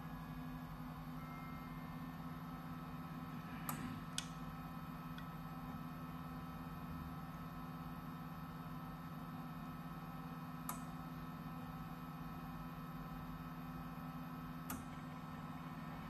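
Continuous inkjet printer humming steadily through its shutdown sequence, with a few sharp clicks: two close together about four seconds in, one near the middle, and one near the end.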